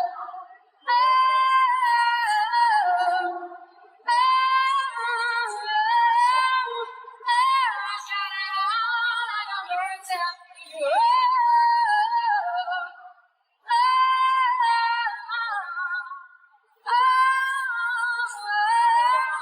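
A female singer's isolated live lead vocal, with no backing track: a run of long, high sung phrases with short breaks between them, mostly without clear words, the pitch wavering and sliding within each phrase.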